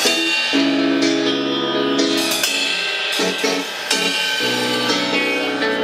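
Drum kit played live, with cymbal and hi-hat strikes, over a recorded backing track of the song carrying held chords.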